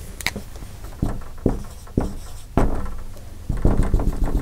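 Dry-erase marker writing on a whiteboard: a few separate taps and short strokes, then a quicker run of short strokes near the end as dashes are drawn.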